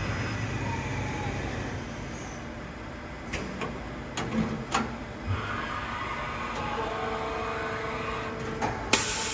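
Urawa UB-75 machining center running: a steady mechanical hum broken by several sharp clanks in the middle, then a held motor whine, and a sudden loud rush of hissing noise near the end.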